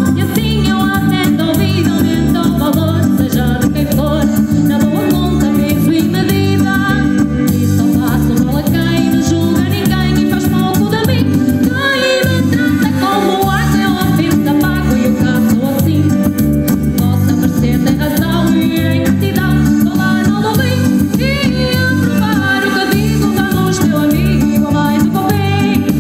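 Live band music over a PA, loud and steady: a woman singing over keyboard, electric guitar and a steady beat with heavy bass.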